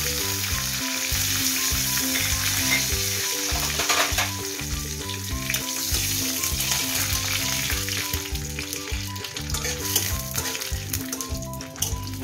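Cumin seeds and a bay leaf sizzling in hot oil in a kadai, stirred with a spatula, with a few light knocks against the pan. Soft background music with sustained notes plays underneath.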